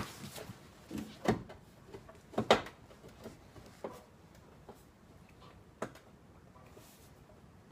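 Scattered knocks and clunks of a sheet-steel rocker panel being handled and pushed into place, the loudest two about a second apart early on, then fewer and lighter ones.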